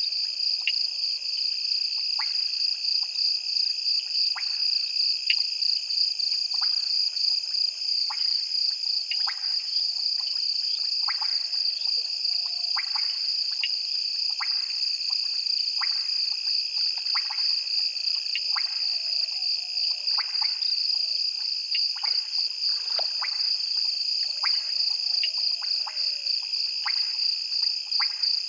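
Night chorus of frogs and insects at a waterhole: a steady, high, finely pulsing shrill drone, with many short, sharp frog clicks scattered through it.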